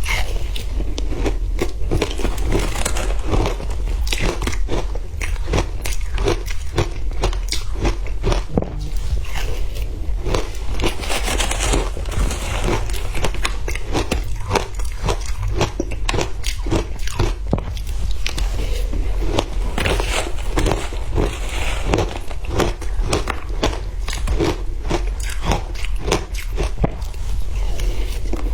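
A person biting and chewing frozen matcha ice, a continuous run of close, crisp crunches several times a second.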